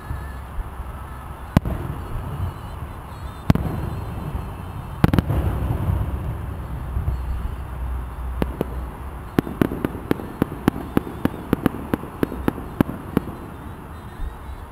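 Fireworks display: single shell bursts go off a couple of seconds apart, then from about eight seconds in a quick run of sharp cracks comes at about three or four a second, all over a steady low rumble.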